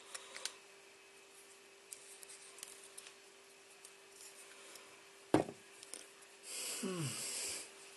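Flush side cutters snipping the excess component leads off a soldered circuit board: a few small sharp clicks in the first seconds. A single thump about five seconds in, then a brief rustle near the end, over a faint steady hum.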